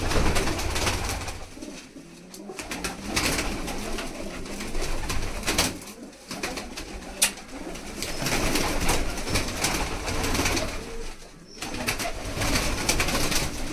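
Domestic pigeons cooing and wings flapping in a small loft as several birds take off and flutter between the perches, with scattered sharp flaps.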